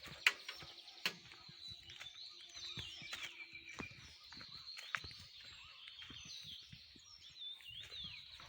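Birds chirping, many short calls that glide up and down in pitch, overlapping and fairly faint, with scattered sharp clicks and crackles; the loudest knocks come just after the start and about a second in.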